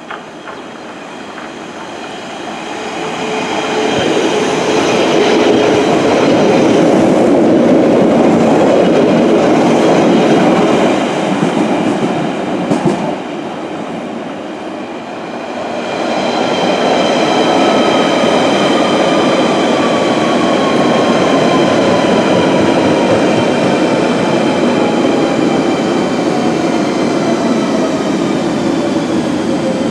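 A London Underground 1962 tube stock train runs through the station, its noise building up and staying loud for several seconds with high ringing tones over it. After a brief lull, a 1992 tube stock train comes in, its whine falling slowly and steadily in pitch as it slows.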